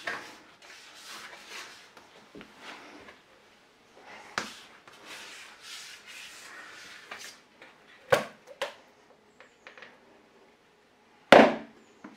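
A plastic bench scraper scrapes and slaps soft, oily bread dough across a marble countertop. Near the end come a few sharp knocks of the scraper and a plastic bowl, the loudest a little before the end.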